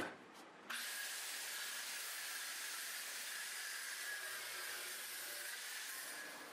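Abrasive chop saw's cutoff wheel cutting through a forged steel canister clamped in a vise: a steady hiss with a faint whine that starts abruptly just under a second in.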